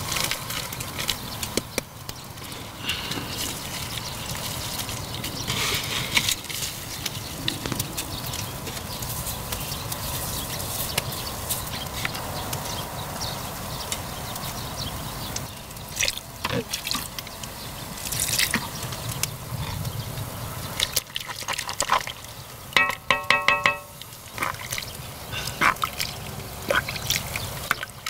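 Sliced vegetables and seasonings dropping into a cast-iron cauldron of kimchi broth, with soft splashes and drips of liquid and scattered clicks of handling. Near the end a spoon scrapes chili paste off a plate into the pot. About two-thirds through there is a brief, rapid, stuttering pitched sound.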